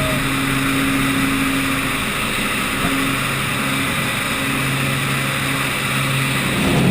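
Aircraft engine running steadily, heard from inside the cabin as the jump plane climbs to altitude.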